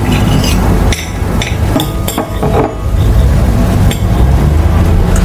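A few sharp knocks and clicks at irregular intervals over a loud, steady low rumble.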